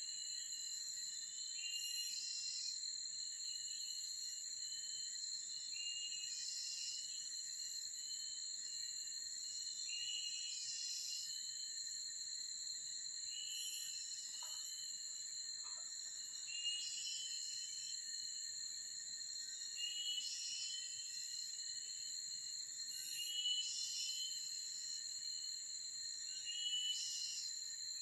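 Forest insect chorus: a steady high-pitched drone of crickets or similar insects at two pitches, with short chirping calls repeating every second or two.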